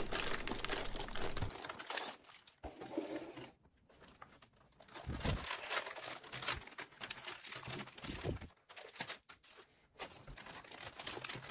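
Plastic anti-static bag crinkling and rustling in irregular bursts as a motherboard is handled inside it and slid out, with a couple of dull bumps along the way.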